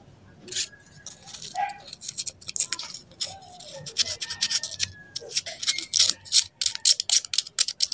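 Sandpaper rubbed over a small metal part in quick, irregular scratchy strokes, starting about half a second in, to clean it.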